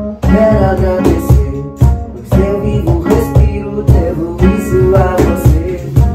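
Two acoustic guitars strummed in a steady rhythm while a young man sings a Portuguese-language worship song.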